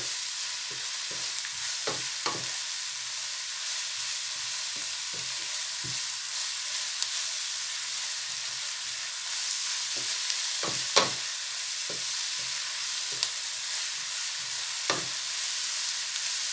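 Chopped vegetables sizzling in olive oil in a frying pan as a wooden spatula stirs them: a steady frying hiss with irregular scrapes and taps of the spatula against the pan, the sharpest about two-thirds of the way through and again near the end.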